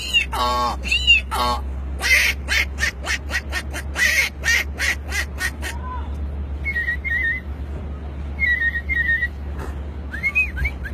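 A man imitating animal calls with his voice: a few arching calls, then a fast run of short repeated calls, followed by high whistled notes in short groups and a few rising whistles near the end.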